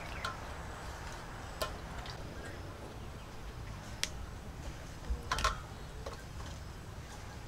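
A few scattered sharp clicks and taps, with a small cluster about five seconds in, from hands and squid knocking against an aluminium bowl of water while the squid is cleaned, over a steady low background rumble.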